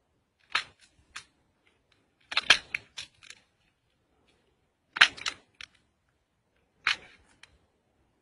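Pomegranate rind cracking and snapping as scored sections are pried apart by hand. The sharp cracks come in separate bursts, the loudest cluster a little over two seconds in and another about five seconds in.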